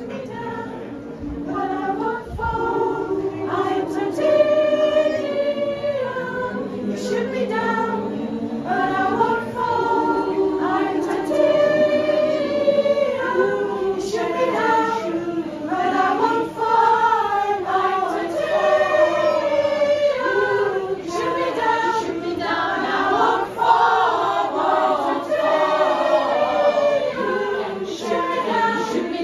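A choir singing a cappella, many voices holding sustained chords in harmony, the sound building up over the first few seconds.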